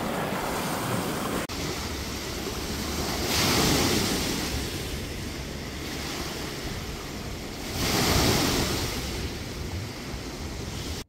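Small waves washing onto a sandy shore, swelling twice, about three and a half and eight seconds in, with a steady wind rumble on the microphone. There is a brief click and dropout about a second and a half in.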